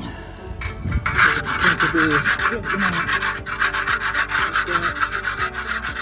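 Rough, steady scraping of something rubbed hard and fast against a hard surface, starting about a second in.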